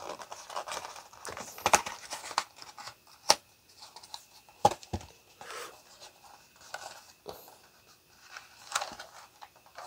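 Cardboard mask box being opened by hand: paper and cardboard rustling and tearing, with several sharp clicks and crinkles as the flap is pulled open and the contents slid out.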